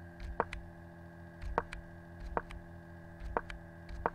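About a dozen sharp clicks in quick clusters of two or three, from a computer being clicked to step through the moves of a chess game, over a steady electrical hum.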